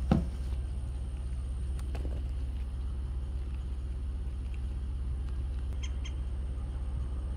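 Steady low outdoor rumble, with a short thump at the very start and two brief high chirps about six seconds in.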